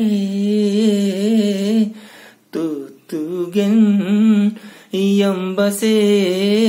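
A man singing a traditional Limbu hakpare samlo unaccompanied, in long held notes with a wavering pitch. The phrases are broken by short pauses a few times.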